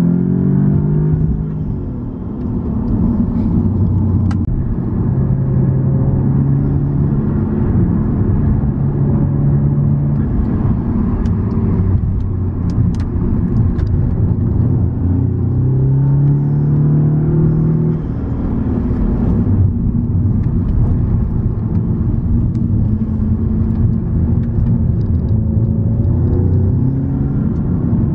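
Car engine heard from inside the cabin while driving a mountain road. It climbs in pitch under acceleration at the start and again about two-thirds of the way through, and runs steadily in between.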